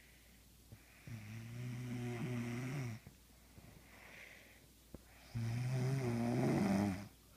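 Snoring: two long, loud snores on the breath in, about four seconds apart, each with a low buzzing pitch, and a softer breath out between them.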